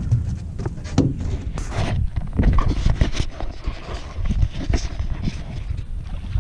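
Handling noise on a pole-mounted action camera: irregular knocks, bumps and rubbing from fingers and the mount, over a steady low rumble of wind on the microphone.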